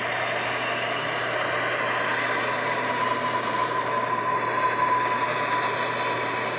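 A steady rushing noise like an electric train, building up at the start and then holding, with a high steady whine through the middle.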